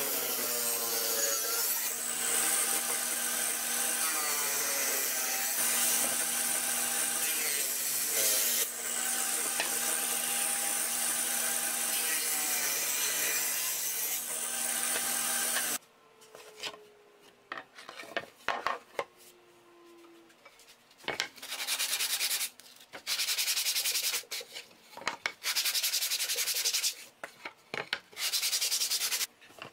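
Table saw running as a wood panel is fed through the blade, a steady whine whose pitch shifts under load, cutting off abruptly about halfway through. Later, a sanding block rubbed over the wood in a series of strokes about a second long each.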